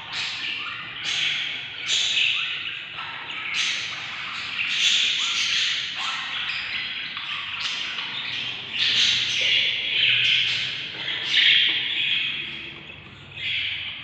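Budgerigar chicks in the nest box giving harsh, raspy chirps one after another, overlapping, begging to be fed by the parent.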